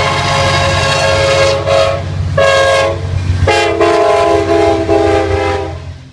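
Diesel locomotive's multi-note horn sounding in three loud blasts, the last one long and lower in pitch, over the steady low rumble of the passing train.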